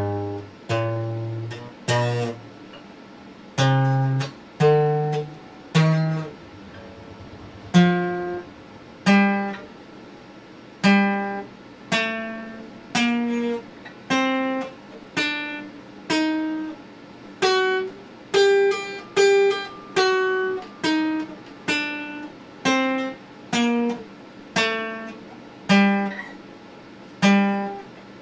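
Acoustic guitar played slowly, one picked note or chord at a time, about one a second, each left to ring out before the next, the pitch stepping up and down.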